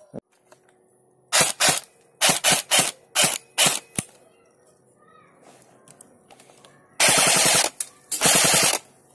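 A 3D-printed MP5 airsoft electric gun (AEG) with a V2 gearbox firing: about eight single semi-auto shots in quick succession, then, near the end, two full-auto bursts of under a second each as the gearbox cycles rapidly.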